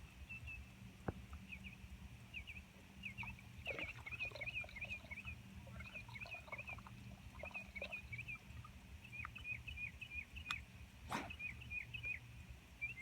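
A bird chirping over and over in quick strings of short, high chirps, over a low steady rumble, with a few sharp clicks, the loudest about eleven seconds in.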